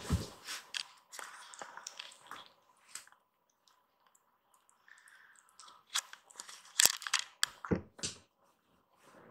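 Two young kittens tussling and nibbling at each other on a fleece blanket: close rustling with small wet crackles and clicks, a few sharper clicks bunched in the later part.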